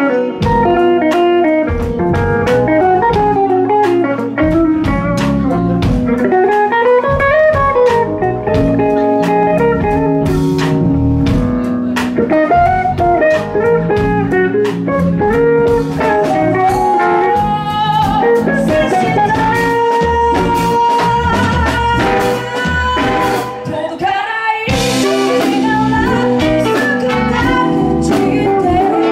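Live band playing a blues-flavoured number, with a semi-hollow-body electric guitar playing lead lines over bass and drums. About 25 s in, the full band comes in harder with crashing cymbals.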